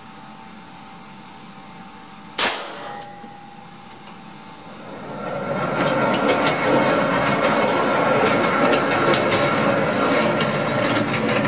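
A single shot from a CZ75 SP01 Shadow pistol in 9x21 mm about two seconds in, sharp and ringing. From about five seconds in, a motorised target carrier runs steadily as it brings the paper target back to the firing point.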